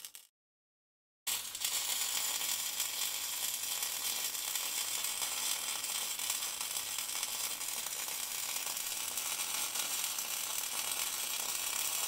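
Stick (SMAW) welding arc from a Canaweld MIG/MMA 201 sizzling and crackling steadily as an electrode burns along steel plate. It follows a brief MIG welding arc that cuts off at the very start, with about a second of dead silence between them.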